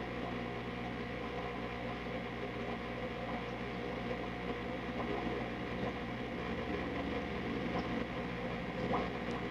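Steady low mechanical hum, with a faint tick or two near the end.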